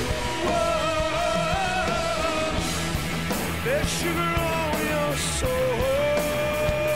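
Rock band playing live: drums with regular cymbal strokes, bass and guitars, with a long, wavering, sliding melody line held over the top.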